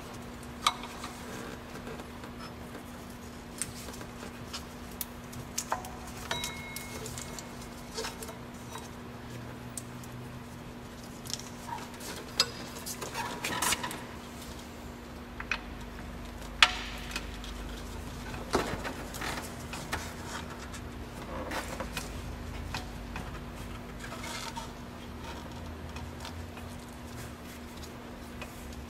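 Scattered light metallic clicks and knocks of hands and tools working around an engine's accessory pulleys while a serpentine belt is fitted, over a steady low hum.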